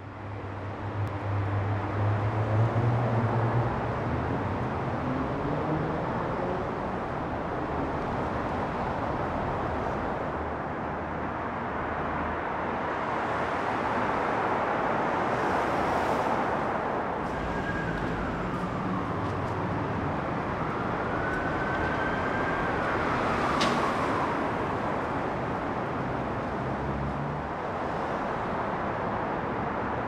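City road traffic: cars driving past with a steady rush of tyre and engine noise, and a low engine hum in the first few seconds. Past the middle, a thin high squeal glides down and back up, with a sharp click soon after.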